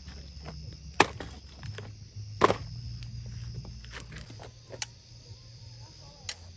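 Firewood being chopped: about four sharp wooden knocks a second or more apart, the loudest about two and a half seconds in, over a steady low hum.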